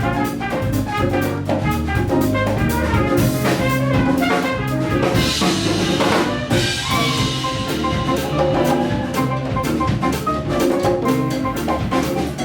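Live Afro-Cuban Latin jazz band playing: trumpet over piano, bass, drum kit and Latin percussion, with a steady driving drum pattern throughout.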